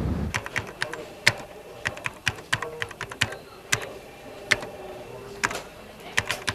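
Typing on a computer keyboard: irregular keystroke clicks, several in quick runs with short pauses between.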